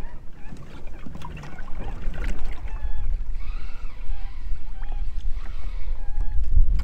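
Wind buffeting the microphone with a low rumble, under many short, repeated calls of ducks close by.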